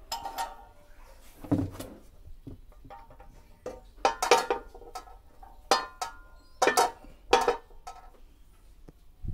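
Frying pans being hung on metal S-hooks on a wall rail: a series of about six metallic clanks and clinks as the pan handles knock against the hooks, rail and each other, with a duller knock about a second and a half in.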